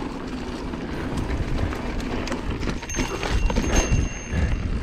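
Mountain bike riding fast down a dirt singletrack: tyres rolling over dirt and leaves, with the bike knocking and rattling over bumps, louder from about three seconds in.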